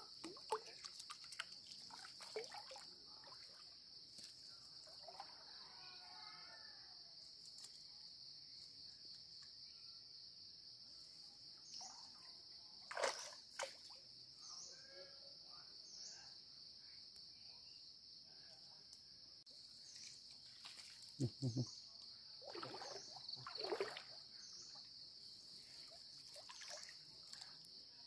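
Steady high-pitched insect chorus, like crickets, with water splashing and sloshing as someone wades and handles a cast net in a shallow stream. The splashes are sharpest about 13 seconds in and again around 21 to 24 seconds.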